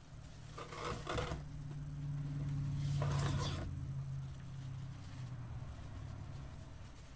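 Wire-edged ribbon rustling and crinkling as it is pulled off the spool and folded into loops, in two short bursts. A low steady hum runs underneath, swelling and then fading.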